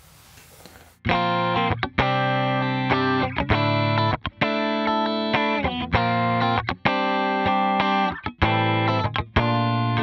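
Electric guitar playing a series of ringing clean chords through a Line 6 Helix with its 3-Band Comp compressor set to a 12:1 ratio, starting about a second in. The strong compression is meant to tame the sharp highs of the unwound strings and make the clean tone sound more balanced.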